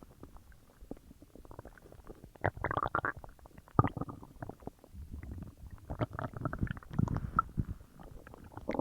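Loud stomach and intestinal gurgling while a large meal digests: irregular rumbles, squelches and bubbling gurgles, with louder bursts about two and a half seconds in, near four seconds, and again around six to seven seconds.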